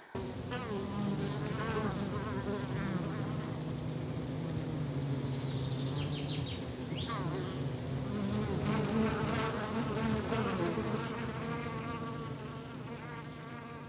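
Bees buzzing: a steady, many-voiced hum with single buzzes wavering in pitch over it, fading out near the end.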